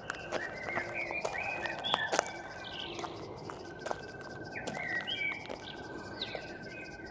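Outdoor evening ambience: birds chirping in short calls, over a steady pulsing insect trill that stops and starts, with scattered sharp clicks.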